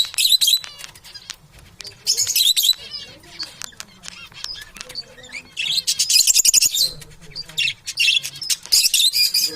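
Parrots chirping and twittering in several loud bursts of high-pitched chatter, with quieter chirps between.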